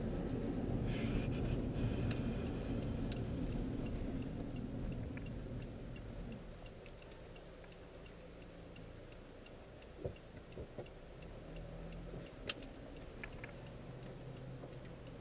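Honda CR-V's turn-signal indicator ticking steadily inside the cabin. Road and engine noise fades about six seconds in as the car slows to a stop, and a few sharp clicks come near the end.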